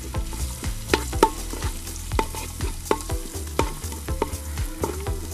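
A spatula scraping and clicking irregularly against a flat metal pan while crushed shallots, dried red chillies, garlic and curry leaves sizzle in hot oil: a tempering being stirred and sautéed.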